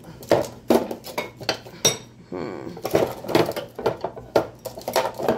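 Drawer being shoved and its contents handled, small hard and metal items inside clattering and clinking in a string of irregular knocks; the drawer is having a hard time closing.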